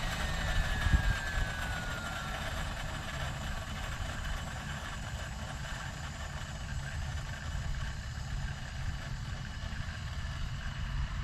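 Vario MD600N model helicopter's small gas turbine whining, the whine falling steadily in pitch and dying away about two seconds in. There is a brief thump about a second in, and a steady low rumble remains.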